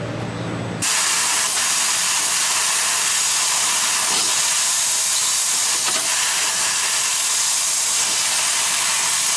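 Laser cutting machine cutting thin metal sheet: a loud, steady hiss of assist gas from the cutting nozzle that starts suddenly about a second in, replacing a lower machine hum.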